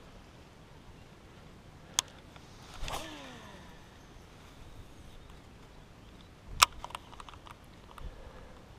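Baitcasting reel during a cast: a click about two seconds in, then the spool's whirr falling in pitch as the line pays out. A sharp click about six and a half seconds in is the loudest sound, followed by a few lighter clicks.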